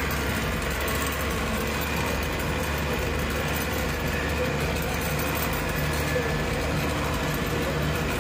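Bus engine running steadily, with road noise, heard from inside the driver's cab.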